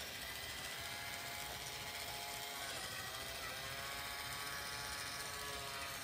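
Battery-operated toy space rocket's small electric motor whirring steadily while the toy is held, its drive wheels spinning freely.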